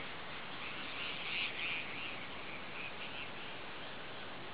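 Steady hiss of light rain over a lake, with a few faint high-pitched animal calls about a second in and again near three seconds.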